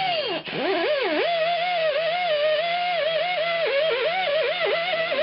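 Background music: a sustained lead melody that bends and wavers in pitch over a steady low note.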